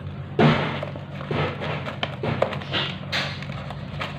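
Cardboard box being handled and opened on a tiled floor: irregular scraping, tapping and knocking of the carton, with a sharp knock about half a second in.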